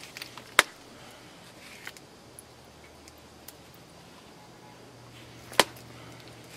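Flintknapping on Buffalo River chert: two sharp clicks about five seconds apart as flakes come off the stone's edge, with a few lighter ticks of the tool on the stone between them.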